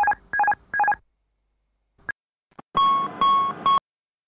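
Airbus A320 master warning aural alert, the continuous repetitive chime: short electronic chimes repeating at a steady pace. There is a click about two seconds in. Three more chimes follow, then the alert cuts off abruptly near the end as the master warning is cancelled.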